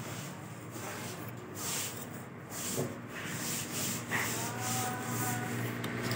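Irregular metal scraping and rubbing from work on a donkey water pump's bearing end cap as it is fitted and tightened, with a few sharper knocks.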